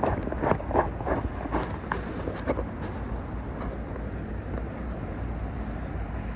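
Wind buffeting the microphone of a rider on the move, a steady low rumble with road noise, and a run of short crackles in the first couple of seconds.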